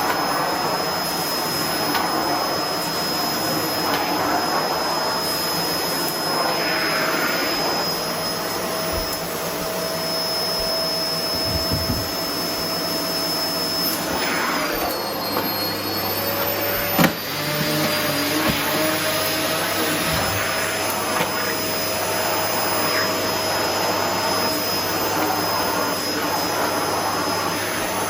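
Paper-bag vacuum cleaner running steadily with a high motor whine. About halfway through its pitch dips briefly, and a sharp knock follows a moment later.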